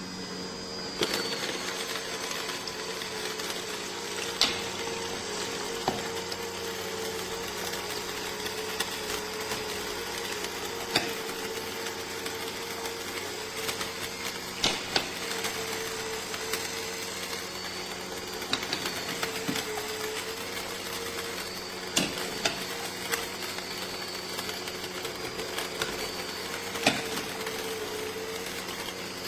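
AMZCHEF cold-press slow juicer running: a steady motor hum with a slightly wavering pitch, broken by sharp cracks and clicks every few seconds.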